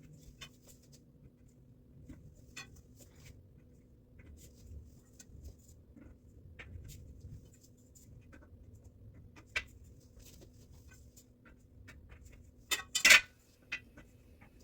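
Scattered light clicks and taps of steel bed-frame parts being handled and hand-tightened, with a louder cluster of sharp clicks about 13 seconds in.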